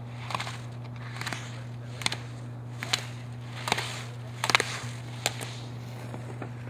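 A slalom skier's edges scraping the snow turn after turn through the gates: a short hiss roughly every 0.8 seconds, about seven in all, over a steady low hum.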